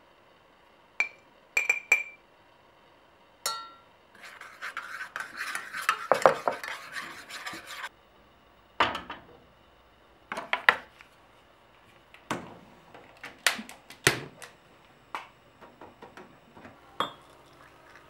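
A metal spoon and a small stainless steel pot clinking and scraping. A few sharp clinks come first, then about four seconds of busy stirring and scraping against the metal, then scattered knocks and clinks.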